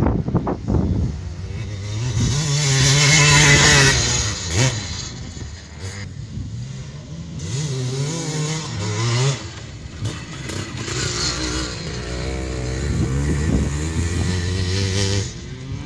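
Enduro motorcycle engine revving hard on a dirt test course, its pitch climbing and falling back several times as the rider accelerates and backs off. It is loudest a few seconds in and drops off suddenly near the end.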